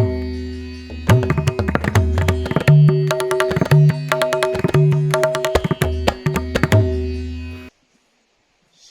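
Background music: drum strikes over steady held notes, cutting off abruptly near the end.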